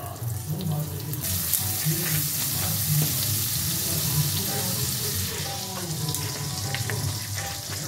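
Butter sizzling as it melts in a hot non-stick kadai. The hiss builds about a second in, then holds steady.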